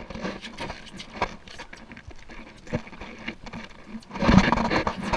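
Boat's outboard motor idling with a low steady hum, under scattered knocks and scuffs of movement on the deck. A louder burst of noise comes about four seconds in.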